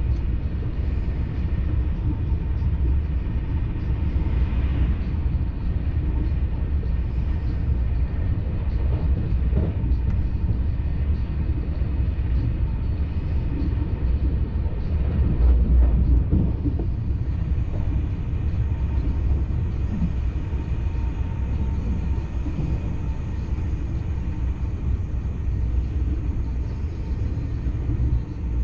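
Steady low rumble of a TGV Duplex high-speed train running, heard from inside the passenger car, swelling slightly about halfway through.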